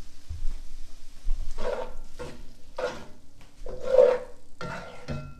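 Metal tongs stirring and lifting hot linguine in a cast-iron skillet, in a run of short scraping strokes with a light sizzle, the loudest about four seconds in.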